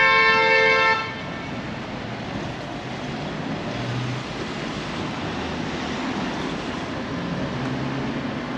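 A vehicle horn holds one chord of several pitches for about a second and then stops, followed by steady traffic noise.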